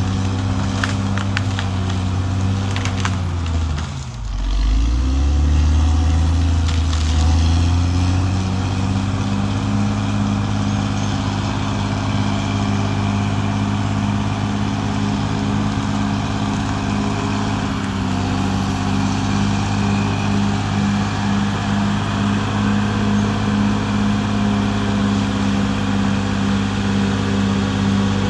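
Caterpillar D6R XL bulldozer's diesel engine running steadily; about four seconds in the engine speed drops sharply and climbs back within a couple of seconds. A few sharp clicks sound in the first three seconds.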